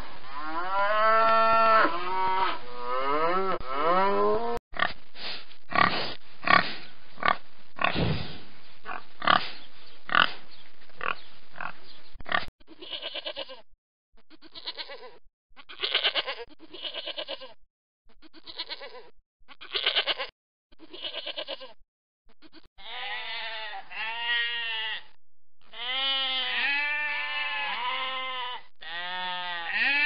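A string of farm-animal calls: a calf mooing in long, gliding calls for the first few seconds, then a run of short, sharp grunting sounds. From about twelve seconds in a goat bleats in short bursts with gaps between, and in the last several seconds sheep bleat in repeated wavering calls.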